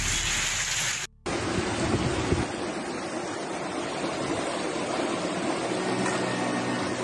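Brown floodwater rushing and churning down a street in a torrent, with wind buffeting the microphone. The sound cuts out briefly about a second in.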